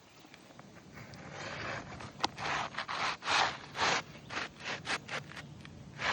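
A hand tool scraping against asphalt roof shingles in a run of short strokes, with one sharp click a little after two seconds in.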